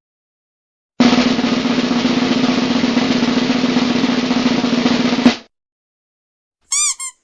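Snare drum roll sound effect: a fast, even roll lasting about four seconds that ends in one sharp hit. Near the end come two short high chirps that rise and fall in pitch.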